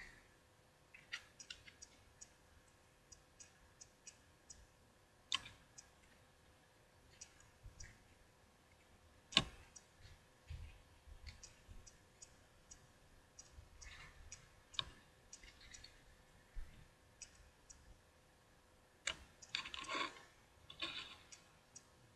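Faint handling of baseball trading cards: scattered light clicks and ticks as the cards are flipped through and held up, with a few short rustles, the busiest stretch near the end.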